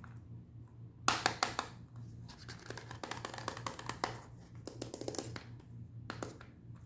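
Hard plastic toy capsule being gripped and twisted by hand, its two shell halves scraping, clicking and creaking against each other in several scratchy bursts, the loudest about a second in.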